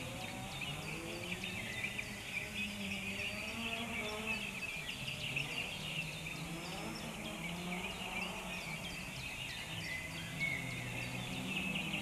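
A low engine drone whose pitch slowly wavers up and down, under the constant chirping and twittering of many small songbirds.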